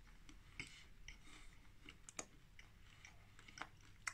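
Faint chewing of a mouthful of caramel chocolate bar with crunchy toffee bits: a few soft, scattered clicks and crunches from the mouth, sharpest about two seconds in and near the end.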